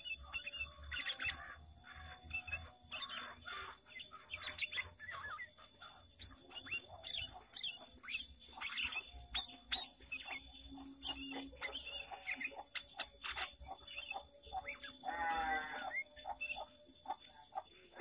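Sooty-headed bulbul singing: a busy run of short, quick whistled chirps. About fifteen seconds in comes a rapid stuttering chatter.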